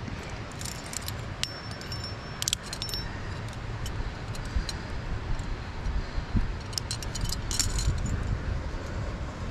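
Metal climbing gear (carabiners and quickdraws on a harness) jangling and clinking in short clusters, one clink ringing on briefly, over a steady low rumble.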